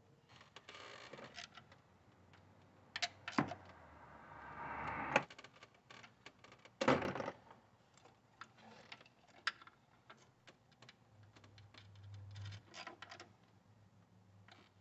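Faint clicking, tapping and rustling of rubber hoses and plastic line connectors being handled and fitted onto the plastic upper intake manifold of a 3.5 V6 engine, with a few louder knocks scattered through.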